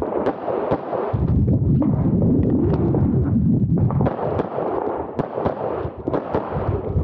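Handgun shots fired in quick strings during an IPSC course of fire. A cluster of shots near the start, a stretch of about three seconds of dull low rumbling with few shots, then shots resume about four seconds in.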